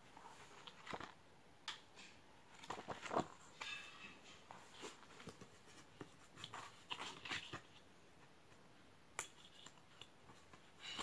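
Faint rustling and soft taps of a hardcover album photobook being handled by hand as its pages are turned, in short scattered bursts. The loudest paper brush comes about three seconds in, and a sharp click comes near the end.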